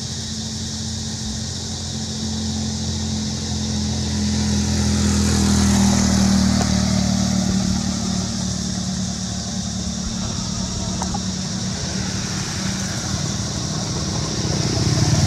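Motor vehicles running on a road, the engine hum growing louder to a peak about six seconds in as one passes, then easing, and rising again near the end as another approaches.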